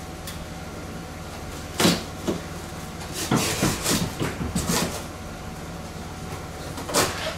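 Box cutter cutting down the corner of a large corrugated cardboard shipping box, a cluster of scraping rasps, with a sharp knock of the cardboard about two seconds in and another near the end.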